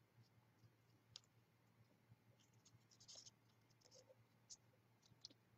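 Near silence, with faint scattered ticks and rustles of small paper flower petals being handled and pressed together by hand.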